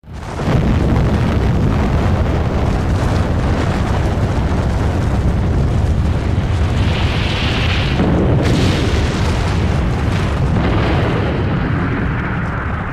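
An atomic bomb explosion sound effect: a blast that cuts in suddenly out of silence and carries on as a long, loud, steady rumble.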